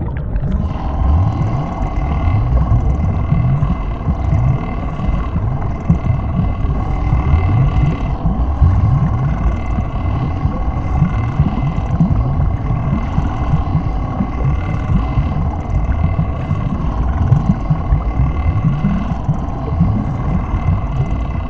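Continuous stomach gurgling and rumbling: dense, irregular low gurgles with a steady hum above them.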